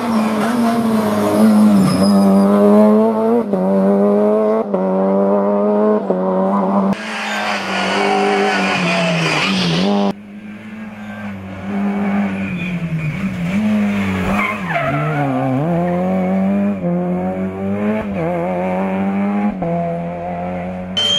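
Citroën Saxo rally car's four-cylinder engine revving hard and climbing and dropping in pitch with each gear change, with some tyre squeal. The sound changes abruptly about seven and ten seconds in as one pass cuts to the next.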